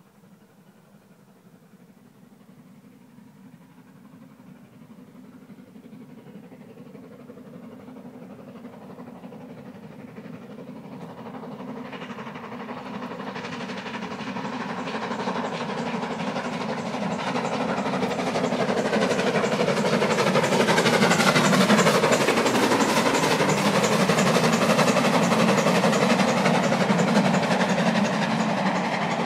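GWR King Class four-cylinder 4-6-0 steam locomotive No. 6024 working hard at speed with its express train, the exhaust and the running of the train growing steadily louder as it approaches. It is loudest about twenty seconds in and stays loud as it passes close by.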